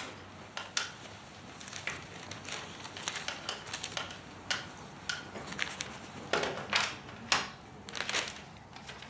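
Irregular handling noises in a small room: rustling like paper, with sharp clicks and small knocks, a few louder ones about six to seven seconds in. This fits a room being searched.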